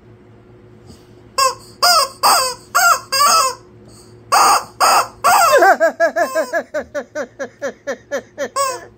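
Squeaky rubber chicken toy squawking as a dog bites it: a handful of separate loud squeals, then from about halfway a quick run of short squeaks, about four a second, as the jaws work it.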